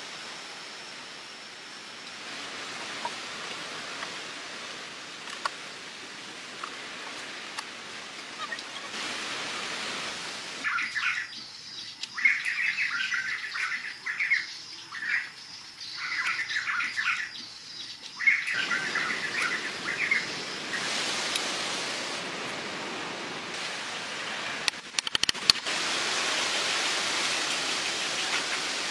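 A steady, even outdoor hiss, with birds chirping in quick repeated clusters for about eight seconds in the middle. A few light taps and clicks come through, most clearly a short run near the end.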